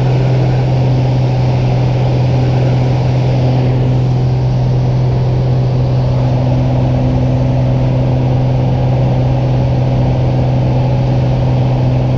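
Single-engine propeller plane's engine and propeller droning steadily, heard from inside the cabin, with a strong low hum that holds one pitch.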